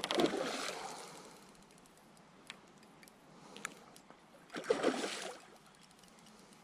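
Water splashing twice, once right at the start and again about five seconds in, with a few faint ticks between: a hooked barbel thrashing at the surface as it is played in.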